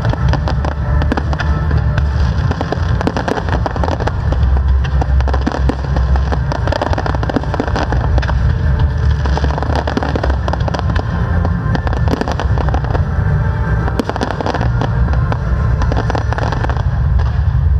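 Professional fireworks display: aerial shells and ground-fired effects bursting in a dense, continuous barrage, the bangs overlapping with no pause.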